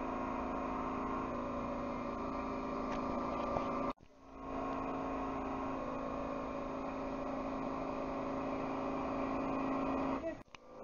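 A steady electrical hum made of several fixed tones over a hiss. About four seconds in it drops out suddenly and climbs back over half a second, and it cuts out briefly again near the end, as at a recording cut.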